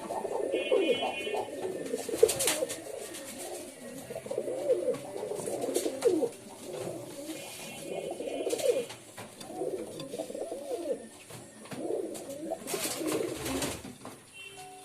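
Several domestic pigeons cooing, their low warbling coos overlapping one after another. A few sharp clicks come in between.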